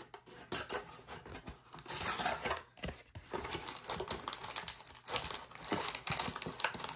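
Cardboard trading-card blaster box being opened by hand: the flaps pulled apart and the foil-wrapped packs slid out, with irregular scraping, rustling and crinkling of card stock and wrappers.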